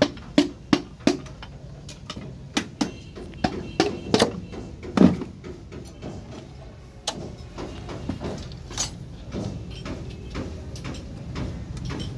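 Irregular sharp metal clinks and knocks from a Bedford engine's connecting-rod cap being handled and fitted onto the crankshaft journal, about a dozen in the first five seconds and softer ones after, over a low steady hum.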